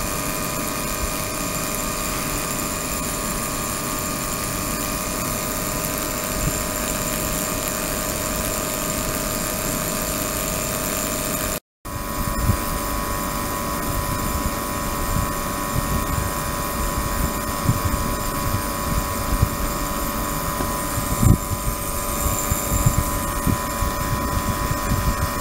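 72 kHz, 300 W ultrasonic transducer running in a water-filled plastic resin tub: a steady hiss with several steady whistling tones, the audible noise of the ultrasound and its cavitation bubbles in the water. After a brief break about halfway, irregular low knocks and crackles join in.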